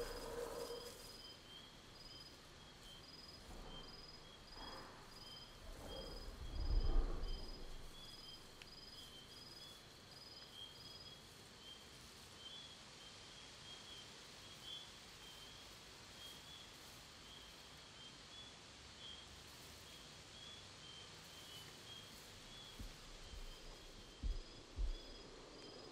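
Faint forest ambience: insects chirping steadily in two high, evenly pulsing tones. A distant low creaking groan swells up about a third of the way in, and two soft low thumps come near the end.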